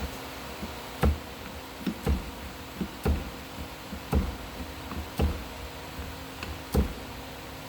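Sharp metal clicks and knocks, about one a second, as tubing is worked around in a hand bead-forming tool, rolling a bead into the tube a bite at a time, over a steady shop hum.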